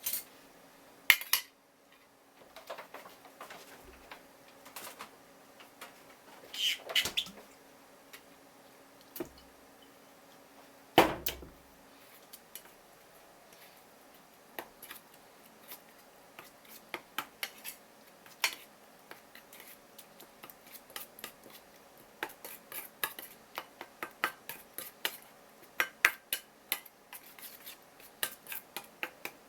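Kitchen utensils and dishes clinking and knocking during food preparation. A few sharp knocks come in the first half, then a long run of quick light taps in the second half.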